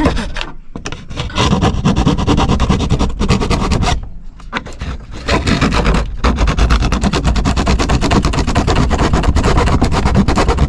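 Saw blade cutting through the caravan's roof panel in rapid strokes, finishing the last side of a rectangular vent cut-out. It stops briefly about half a second in and again around four seconds in.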